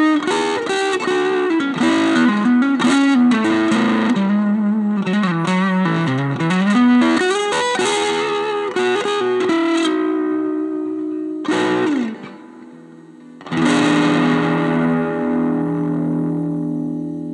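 Electric guitar played through a Veri-Tone Arcturus Class A preamp pedal: quick picked lead lines, a held note and a slide down, then a final chord struck near the end and left to ring out.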